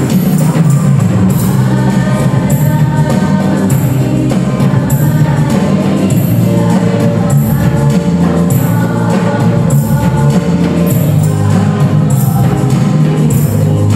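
A sholawat (qasidah) song played live: voices sing a melody over electronic keyboard accompaniment and a steady hand-percussion beat with jingling strokes.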